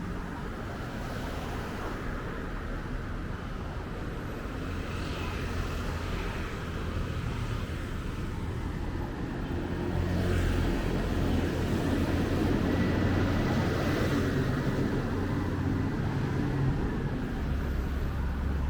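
Road traffic: cars passing in a steady low rumble that grows louder about halfway through.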